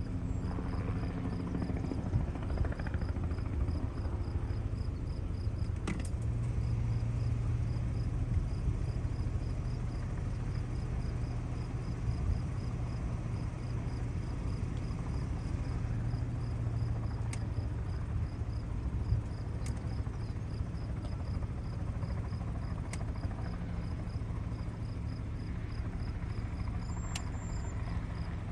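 Steady low engine drone of farm machinery working in the field, swelling for a while in the middle, with a cricket chirping high and regularly throughout.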